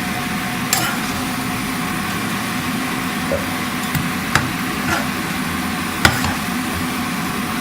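A pan of instant noodles boiling, a steady bubbling hiss with a low hum under it, and a few sharp clicks of a utensil against the pan, the loudest about six seconds in.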